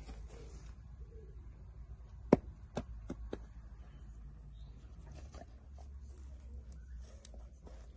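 Black Labradors jostling over a rubber toy at close range. A run of four sharp knocks comes about two to three and a half seconds in, the first the loudest, over a low steady rumble.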